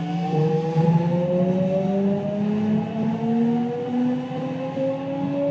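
JR West 207 series EMU's Toshiba GTO-VVVF inverter whining in several tones that rise slowly in pitch as the train accelerates, heard from inside the motor car. One of the car's two inverters has its modulation tone out of step with the other, so two sets of rising tones sound together in a peculiar harmony.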